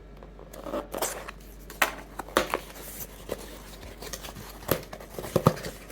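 Phone packaging being handled and opened by hand: plastic and paper rustling and crinkling, broken by several sharp clicks and taps, the loudest near the end.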